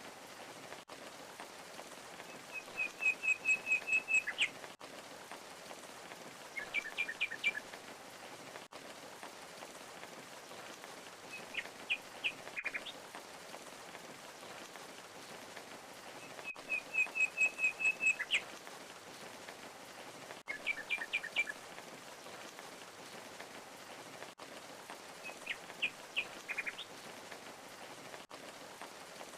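Steady rush of a waterfall with songbirds chirping over it: a fast run of about eight identical high notes, then shorter clusters of chirps every few seconds, the same sequence heard twice.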